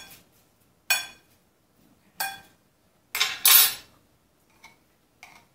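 Metal spoon clinking against a ceramic serving plate and bowl: single ringing clinks about one and two seconds in, then a louder clatter a little after three seconds as the spoon is worked in a bowl of yogurt sauce, and two faint taps near the end.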